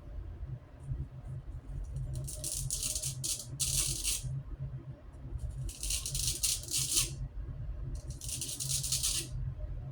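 Straight-edge razor scraping through lathered stubble in several short strokes, each about a second long with pauses between.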